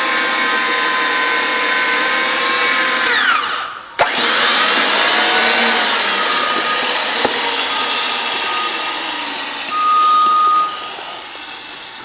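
RIDGID 500 portable pipe-threading power drive running with a steady whine, winding down in pitch about three seconds in. It starts again with a click just before four seconds and runs as it threads the gas pipe, growing gradually quieter toward the end.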